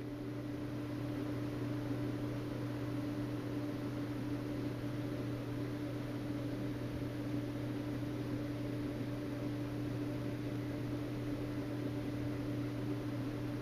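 A steady low hum with a held droning tone and an even hiss over it, unchanging throughout.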